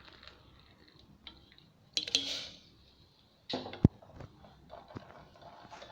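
Kitchen vessels and utensils knocking together: a short clattering burst about two seconds in, then a sharp metallic clink near the middle followed by a few lighter knocks, as the brew is handled for straining into a tumbler.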